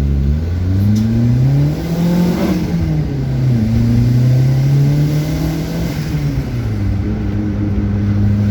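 Turbocharged Fiat Uno engine pulling under acceleration. It rises in pitch for about two and a half seconds, drops sharply at a gear change, holds steady, drops again around six seconds in and then runs on evenly.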